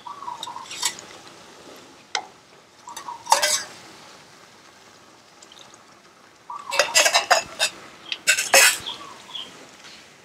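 Stirring and scraping of kitchen utensils: a metal spoon clinking and scraping in a stainless steel bowl of coconut milk, and a wooden spoon working a pan of curry paste. There are a couple of short clinks early, then a denser run of scrapes and clinks from about seven seconds in.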